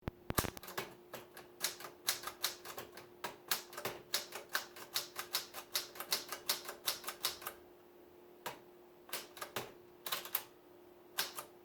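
Old Remington portable manual typewriter being typed key by key, each typebar striking with a sharp clack. About two to three strokes a second for the first seven seconds or so, then a few scattered strokes with pauses between them.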